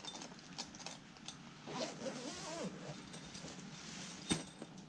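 Rustling of a nylon carp-fishing backpack being handled and its zippers worked, with small scattered clicks. A short wavering pitched sound comes about two seconds in, and a sharp click near the end.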